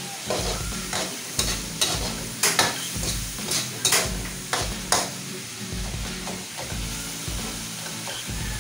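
A spatula scraping and knocking against a pan as food is stir-fried in sizzling oil after soy sauce has gone in. There are about a dozen sharp scrapes in the first five seconds, then mostly quieter sizzling.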